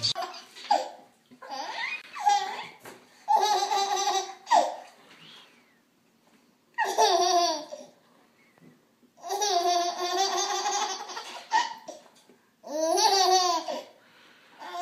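A baby laughing hard in several separate bouts, with short quiet gaps between them.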